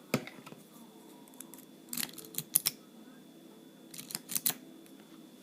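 Small metallic clicks and ticks from a cabinet lock and its lock picks being handled: a sharp click near the start, then a cluster about two seconds in and another about four seconds in.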